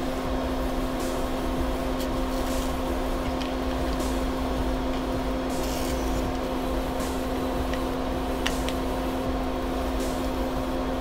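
A steady machine hum: a low drone with a held mid-pitched tone, unchanging throughout. A few faint light clicks of small plastic parts being handled come over it.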